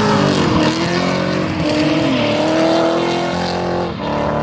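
Two drift cars sliding in tandem, their engines held at high revs, the pitch rising and falling as the throttle is worked, over the hiss of spinning tyres. There is a short dip in the engine note near the end.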